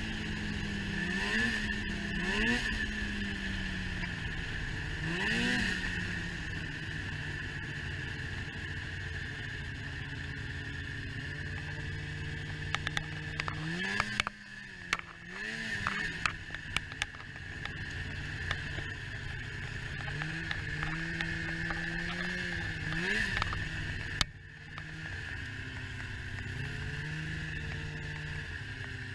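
Snowmobile engine running at low speed, its pitch swooping up and down in repeated short throttle blips. There are scattered clicks and knocks near the middle. The engine note drops off briefly about halfway through and again a few seconds later.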